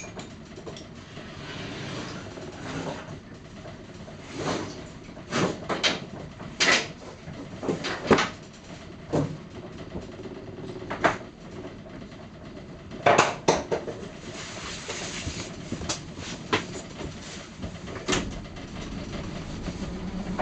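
About a dozen irregular knocks and clunks scattered over a steady low hiss, with no boat engine running: the engine has stalled after being given throttle.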